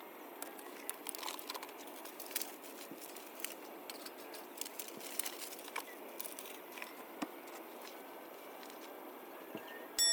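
Light irregular crackling and ticking over a steady hiss, ending in one loud, sharp metallic clink that rings on.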